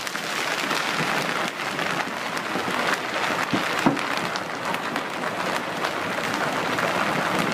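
Large hailstones and heavy rain pelting a lawn and concrete walkway: a dense, steady clatter of many small impacts, with a sharper, louder hit about four seconds in.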